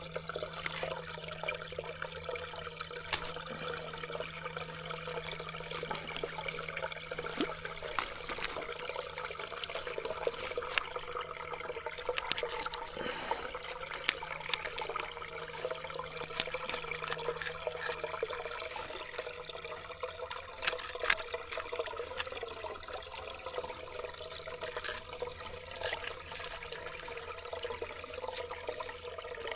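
Water running and trickling steadily, with scattered small clicks and taps from a knife cutting a fish on rock.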